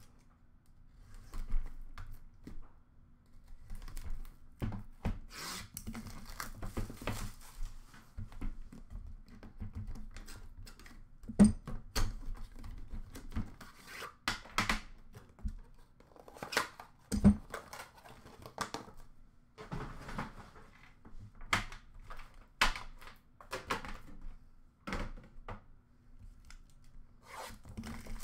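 Hockey card box packaging being unwrapped and opened by hand: wrapping tearing and crinkling, with cardboard rubbing and tapping. Two louder knocks come partway through.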